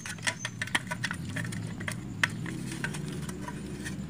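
Scattered light clicks and rattles of sheet metal as the cover of a sewing machine's foot pedal speed controller is pried and worked loose by hand, over a faint steady low hum.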